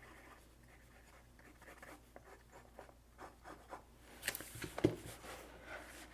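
Bastion Bolt Action Pen's rollerball tip writing, a run of faint, irregular scratching strokes. A few louder strokes come about four to five seconds in.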